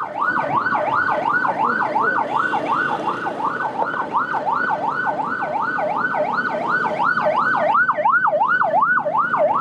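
Emergency-vehicle yelp siren of a RAB (Rapid Action Battalion) escort, its pitch rising and falling quickly, about three times a second, over the noise of traffic.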